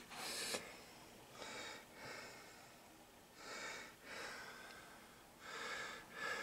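A person breathing close to the microphone: slow in-and-out breaths in pairs, about one pair every two seconds.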